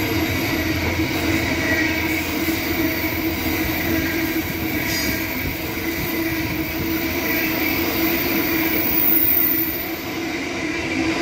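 Freight train of empty flat wagons rolling past at close range: steady wheel and rail noise, with a light dip in level near the end.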